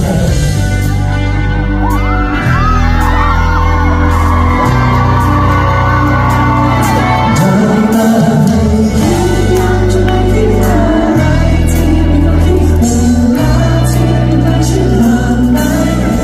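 Loud live pop music with singing, played over a concert hall's sound system and recorded from the audience.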